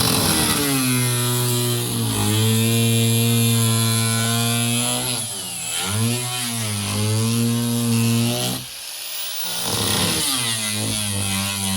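Electric power tool cutting into the boat's wooden floor, running at a steady high speed with a harsh cutting hiss. Its pitch sags twice as it bogs under load, about halfway through and again near the end, with a short let-off between.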